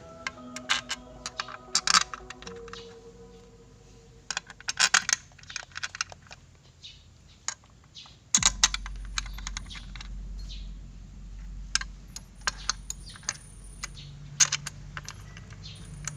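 Repeated sharp metallic clicks and clinks of tools and parts being handled during scooter repair work. A low steady hum starts about halfway through.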